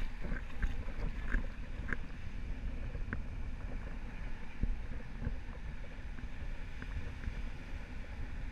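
Wind buffeting the microphone over the steady wash of shallow surf, with a few faint short ticks in the first few seconds.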